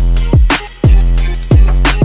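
Hip hop music with a heavy bass drum and steady drum beat, hitting about twice a second.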